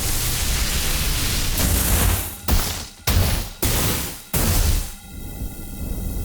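Designed lightning-magic sound effects. A long burst of electric noise comes first, then four short sharp zaps that each start suddenly and die away. The last five seconds or so hold a buzzing electric hum that swells toward the end.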